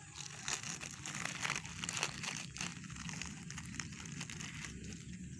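Crinkling, crackling rustle made of many small clicks, busiest in the first three seconds and then quieter.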